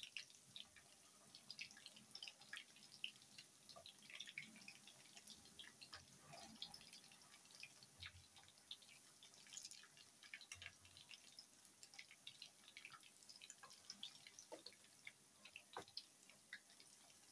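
Faint, irregular crackling and popping of hot oil as shredded-potato-wrapped chicken balls deep-fry in a pot, with an occasional sharper click.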